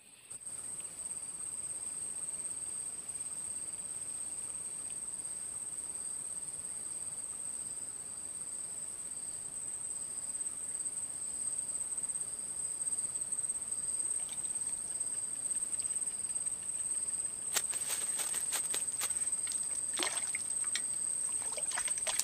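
Steady high-pitched insect drone with a fainter pulsing buzz beneath it. In the last few seconds a hooked snakeskin gourami thrashes at the water's surface, giving a rapid run of sharp splashes and drips.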